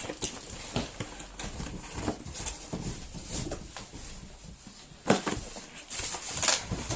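A parcel's packing material being handled and unwrapped: a run of soft rustles and light knocks, with sharper crinkles about five seconds in and again a second or so later.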